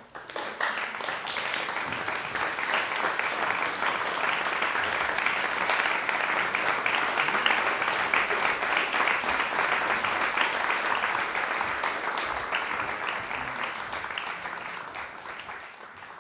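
Concert audience applauding steadily: many hands clapping at once. It tapers off near the end.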